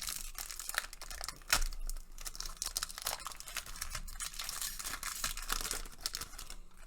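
The wrapper of an SP Hockey trading card pack is being torn open and crinkled by hand. It makes a dense run of crackling, with one louder snap about a second and a half in.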